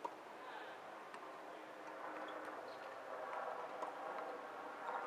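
A tennis ball struck by a racket with one sharp knock right at the start, followed by a few fainter ball ticks over a steady background hiss.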